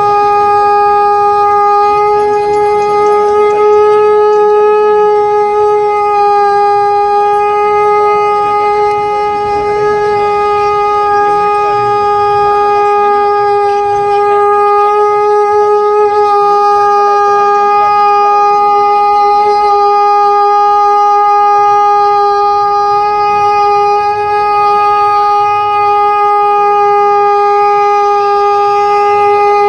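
Conch shell (shankh) blown in one long, steady, loud note, held without a break.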